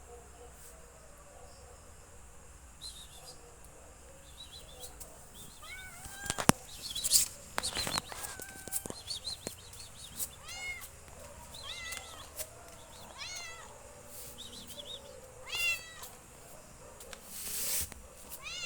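Domestic cat meowing in a series of short calls. A few sharp knocks come about six to eight seconds in, and a brief burst of noise comes near the end.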